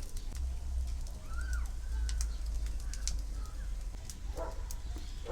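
A bird calls once, a short curved call about a second and a half in, over a steady low rumble with scattered light clicks.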